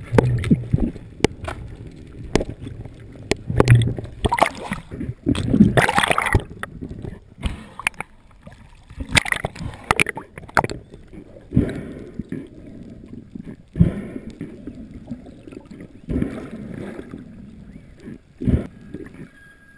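Water gurgling and sloshing around a speargun-mounted camera, broken by irregular knocks and splashes as the speargun and shooting line are handled.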